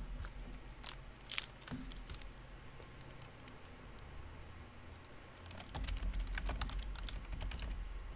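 Light clicks and taps: a few scattered ones near the start, then a quick run of them over the last couple of seconds, over a low steady hum.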